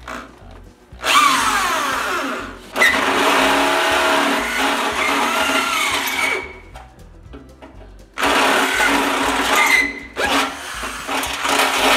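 Handheld electric drill boring through the steel fender of a Massey Ferguson 50 tractor, in four runs of a few seconds each with short stops between, the motor whining and the bit squealing as it cuts the sheet metal.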